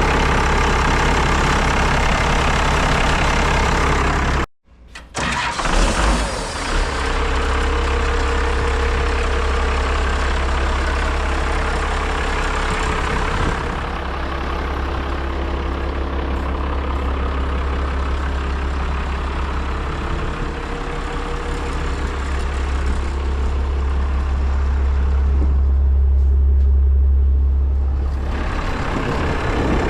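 Cummins B5.9C six-cylinder turbo diesel of a Morbark wood chipper running steadily with a deep hum. The sound cuts out for a moment about four and a half seconds in, then the engine is heard again.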